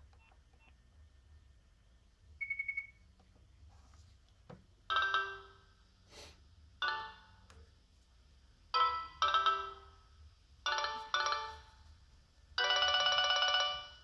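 Nokia 6070 mobile phone playing a polyphonic ringtone through its built-in speaker: a run of short chiming notes with pauses between them, then a longer stretch of notes held near the end. A short beep comes first, about two and a half seconds in.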